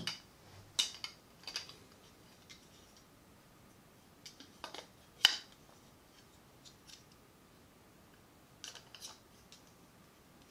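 Plastic clicks and clatters of a microphone shock mount being handled: a few sharp clicks near the start, a louder cluster about five seconds in, and a few more near the end.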